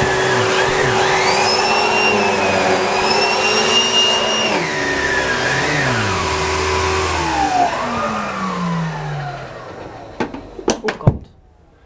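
Numatic Henry vacuum cleaner running steadily, then switched off about seven seconds in, its motor whine falling in pitch as it spins down. A few sharp clicks come near the end.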